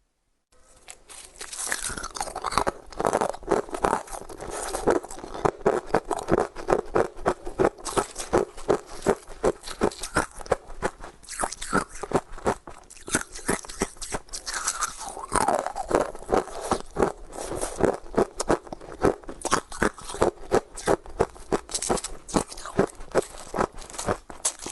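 Ice cubes being crunched and chewed between the teeth, close to the microphone: rapid, sharp crunches several times a second, starting just after a brief silence.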